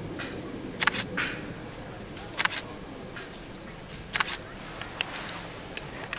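Several short, sharp clicks at irregular intervals, some in quick pairs, over a faint steady background.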